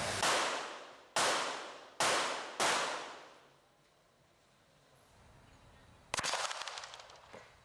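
Four gunshots from a handgun or rifle at a shooting range, spaced roughly a second apart, each ringing out as it decays. After a pause of a few seconds comes a quick burst of several shots near the end.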